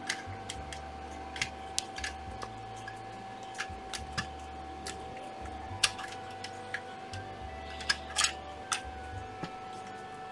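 Irregular small clicks and ticks of a hand screwdriver and small model-car parts being handled while small screws are driven into the model's exhaust and frame assembly, over a faint steady tone.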